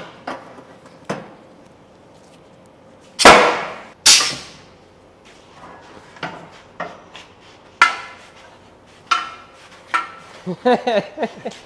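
Two short hisses of released compressed air, about a second apart, from a pneumatic clamp rack, each starting suddenly and fading out. They are followed by a few light metal clanks from bar clamps being handled.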